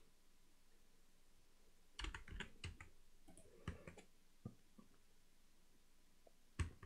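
Computer keyboard keys tapped in short clusters: a quick run of keystrokes about two seconds in, a few more after, and another near the end, with near silence between.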